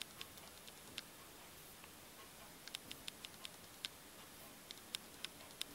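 Faint, irregular light clicks and taps from handling the glossy cardboard packaging of a toy airsoft gun, over a quiet room.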